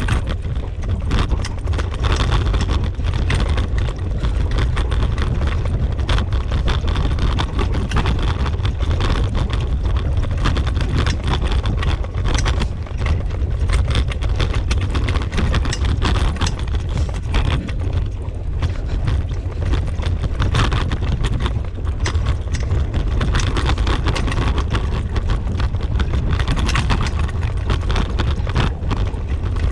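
Steady low rumble of movement along a dirt trail, with wind on the microphone and frequent irregular clicks and rattles, as two huskies pull the line.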